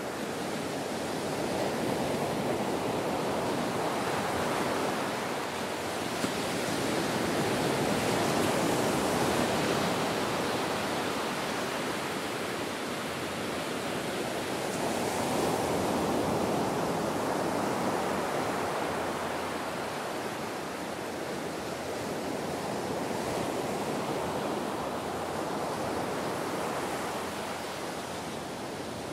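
Ocean waves breaking on a beach, a continuous wash of surf that swells and recedes every several seconds.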